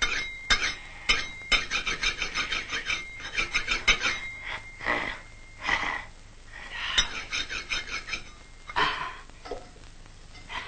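Cartoon sound effects: a quick run of light clinks and rattles like crockery, then several breathy swells of noise.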